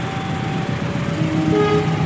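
Approaching diesel locomotive with a steady engine drone. Its multi-tone horn starts sounding about a second and a half in.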